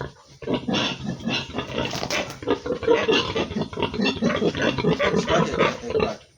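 Pigs grunting over and over, a dense irregular run of low grunts that starts about half a second in and stops just before the end.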